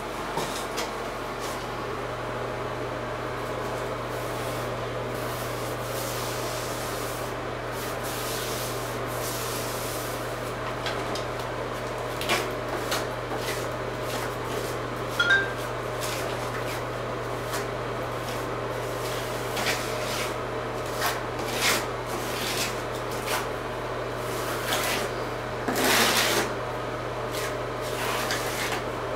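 Brush scrubbing liquid waterproofing membrane onto fiberglass mesh tape in a wall-to-floor corner on cement board and concrete: irregular scratchy rubbing strokes with a few light knocks, more frequent in the second half, over a steady low hum.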